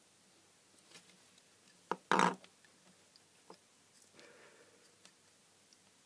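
Plastic parts of a small USB humidifier head being handled as it is taken apart: faint clicks and light rustling, with a sharp click and a short louder knock about two seconds in.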